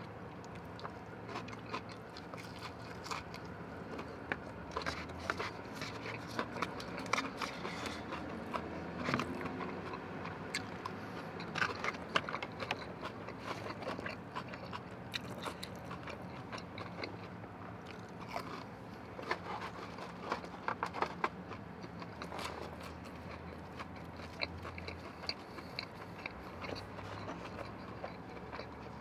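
Close-up chewing and biting of fried chicken tenders and crinkle-cut fries, with many small irregular crunches, clicks and wet mouth sounds and an occasional scrape. A faint steady low hum runs underneath.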